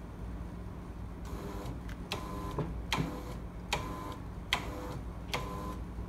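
TTGO electronic-limit tubular shutter motor jerking briefly several times: short bursts of motor hum with sharp clicks, about one every 0.8 s. This is the motor's feedback confirming that the upper limit has been saved.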